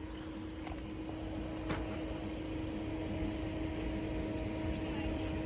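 Diesel train engine running: a steady two-tone hum over a low rumble, slowly getting louder.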